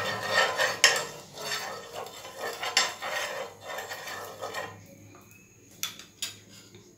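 Metal spoon scraping and rubbing across a frying pan in repeated strokes, spreading a spoonful of refined oil over the hot surface. The scraping stops about two-thirds of the way through, followed by a couple of light clicks.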